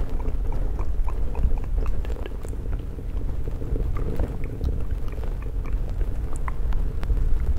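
Close-miked ASMR mouth sounds: a dense run of small wet clicks and smacks, with a steady low rumble underneath.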